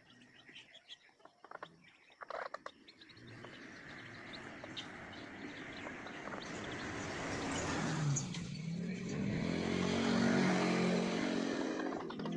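A motor vehicle approaching, its engine noise building steadily over several seconds and loudest near the end, with faint bird chirps at the start.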